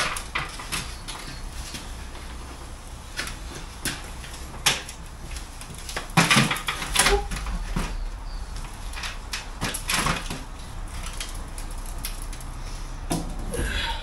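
Scattered knocks, bumps and scrapes of a concrete lintel being lifted and shuffled into a door opening in a block wall, the loudest clusters about six and ten seconds in.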